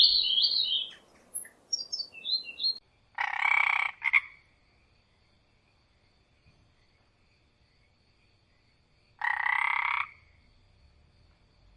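A few short bird chirps, then two separate animal calls of about a second each, some six seconds apart, over a faint steady high background tone.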